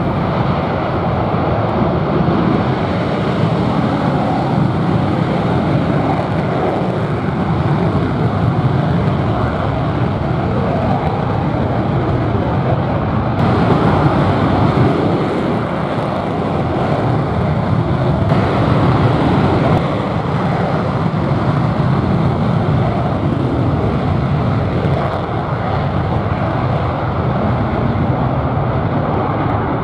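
F-4EJ Kai Phantom jet fighters' twin J79 turbojets at takeoff power during the takeoff roll. Loud, steady jet noise throughout, changing in character about halfway through.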